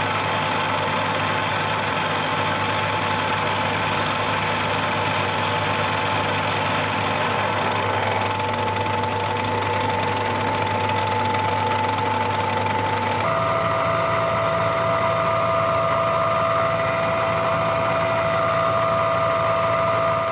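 Milling machine running a face mill through a roughing pass on a cast iron straight edge: a steady motor and gear whine over the cutting noise. The whine steps to a new pitch about 8 seconds in and drops lower again about 13 seconds in.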